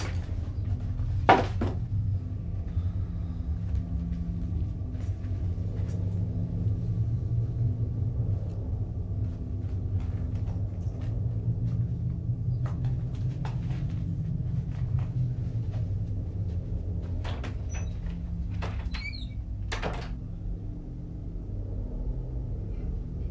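Wooden dresser drawers being pulled open and shut and their contents rummaged through. A sharp knock comes about a second in, then scattered knocks and clatters with a short squeak near the end, over a steady low rumble.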